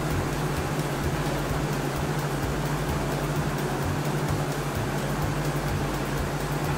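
Helicopter sound effect: steady whirring rotor and engine noise over a low hum, with a fast flickering rhythm in the low end.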